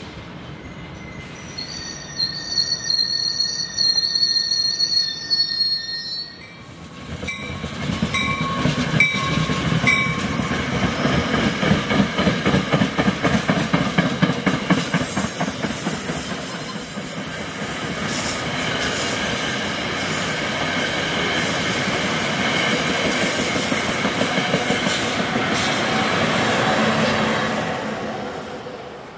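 NJ Transit push-pull passenger train with Comet coaches passing at speed on the Northeast Corridor. High whining tones for a few seconds as it approaches, then a loud rush of wheels on rail with a fast rhythmic flutter for about twenty seconds, fading away near the end.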